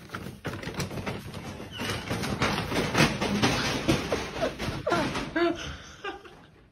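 Brown paper shopping bag crackling and scraping as a cat runs with the bag's handle caught around its neck, dragging it along the carpet, with many sharp knocks among the rustling.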